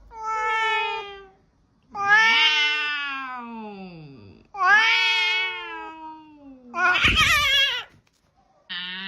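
A cat yowling: four long, drawn-out meows, each falling in pitch, the last one harsher.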